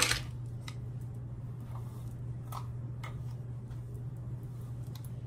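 Handling noise from hair styling: a sharp knock at the very start, then a few faint clicks and rustles, over a steady low hum.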